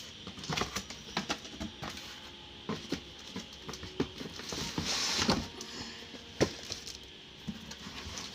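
Scattered clicks and knocks of objects being handled and set down, with a brief rustling swish about five seconds in and a sharper knock just after; no motor is running.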